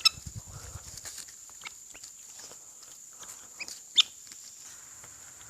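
Birds giving short, scattered chirps and calls, the loudest right at the start and another about four seconds in.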